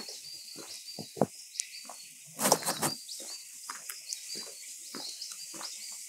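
Footsteps at a walking pace on a wet garden path, one cluster louder about halfway through, over a light patter of rain. Short, high chirps repeat throughout.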